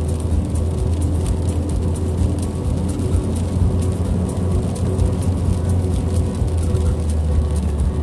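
Car driving at steady speed on a rain-wet road, heard inside the cabin: a steady low engine and road drone with tyre noise.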